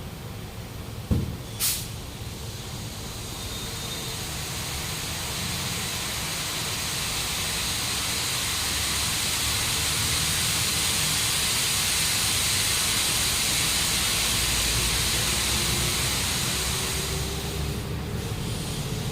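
A knock and a sharp click, then compressed air hissing steadily through a tyre valve, swelling over several seconds, holding, and easing off near the end.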